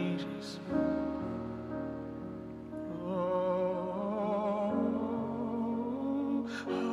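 Live worship music: slow, held keyboard chords over a low bass note that changes about a second in and again near the end. A male voice sings a long note with vibrato from about halfway.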